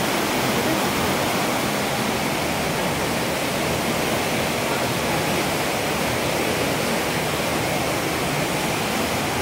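Steady, even rushing of heavy rain and floodwater running down a flooded street.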